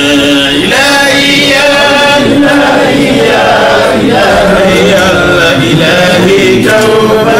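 Male voice chanting a devotional hymn through a microphone, in long held notes with melismatic turns.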